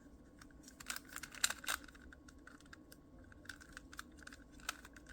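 Quick, irregular plastic clicks and clacks of a speed cube being turned by hand, a few louder turns among fainter ones.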